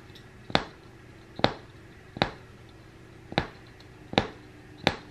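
Punch needle being pushed through fabric, one stitch after another: six sharp pops at a steady pace, roughly one every three-quarters of a second, each pop one stitch laying a loop of yarn.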